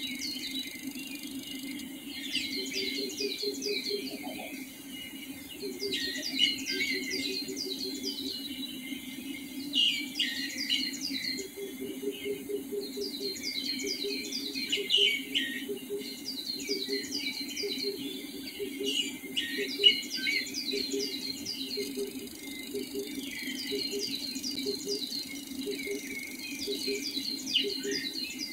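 Dawn chorus of many songbirds, overlapping quick high notes that fall in pitch, with short louder bursts of song. Beneath them sit a steady low drone and a low, rapid pulsing call that starts and stops in runs.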